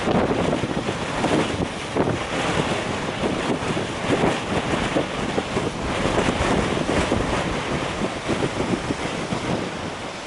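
Gale-force northeast wind, about 25 to 55 mph, buffeting the microphone in uneven gusts over the rush of storm waves breaking on the shore.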